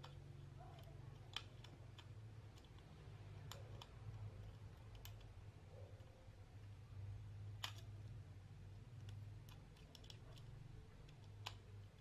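Faint, scattered small clicks, about five spread out, as a screwdriver works at the screw on the underside of a plastic computer mouse and the mouse is turned in the hands, over a low steady hum.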